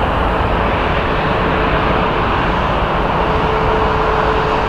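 Emirates jet airliner's engines at takeoff power during the takeoff roll: a loud, steady roar with a droning tone running through it.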